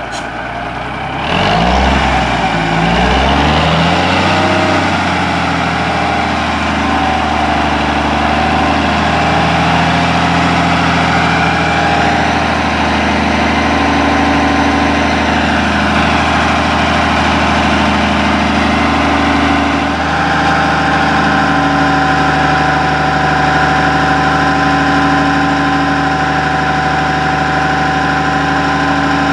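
The diesel engine of a 1986 Peterbilt 310 front-load garbage truck: its revs rise and fall a few times in the first few seconds, then it runs steadily, its note shifting slightly about twenty seconds in.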